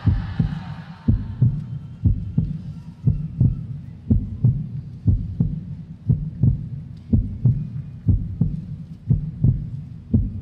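Winter guard show soundtrack played over an arena sound system: a deep, regular pulse of low bass thumps, about one and a half a second, with almost no melody above it.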